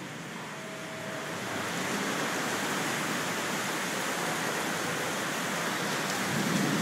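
Heavy thunderstorm rain pouring onto paving and the street, with gusting wind: a steady rushing that swells louder about a second in and then holds.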